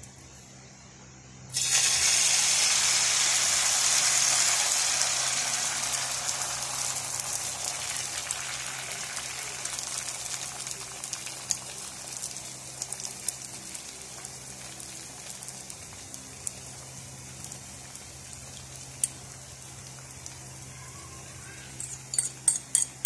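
Egg-and-corned-beef mixture frying in hot cooking oil in a pan. It sizzles loudly all at once about a second and a half in, then fades gradually as it cooks, with a few light clicks near the end.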